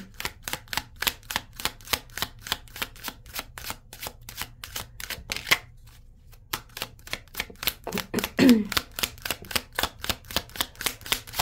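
A deck of tarot cards being shuffled by hand, the cards tapping in a quick, even rhythm of about four to five strokes a second. The shuffling pauses for about a second a little past halfway as a card is drawn, then resumes.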